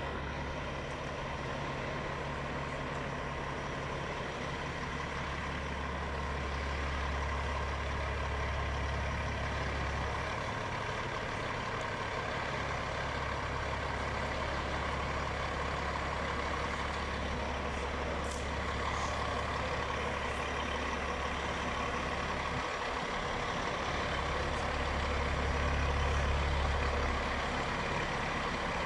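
Heavy semi truck's diesel engine running at low speed as the loaded rig creeps forward: a steady deep drone that swells twice and is loudest near the end.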